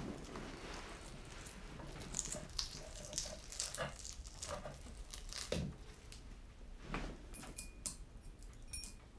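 A wrapper crinkled and torn open by hand, in irregular small crackles, with a light clink of glass near the end.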